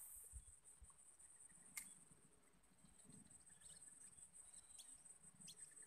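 Faint, steady high-pitched insect trill, typical of crickets, with a few short faint chirps and a single sharp click about two seconds in.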